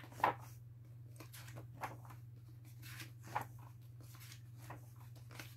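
Pages of a thick softcover book being turned by hand: a few short paper rustles and taps, the sharpest one just after the start, over a steady low hum.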